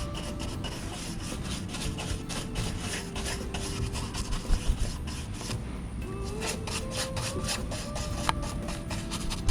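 Paintbrush stroking paint onto a wooden tabletop: a quick, repeated series of rubbing brush strokes.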